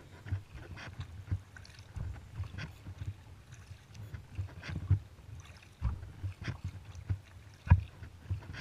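Kayak paddling: the paddle blades dipping and splashing, with irregular drips and knocks over a low rumble, and a sharper knock near the end.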